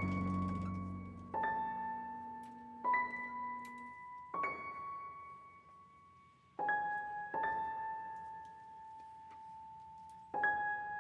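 Background music: slow, sparse piano-like notes struck one at a time and left to ring and fade.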